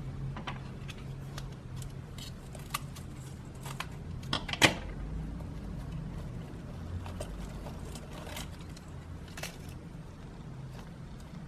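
Slime being handled and squeezed, giving scattered small wet clicks and pops, with one sharper pop about four and a half seconds in, over a steady low hum.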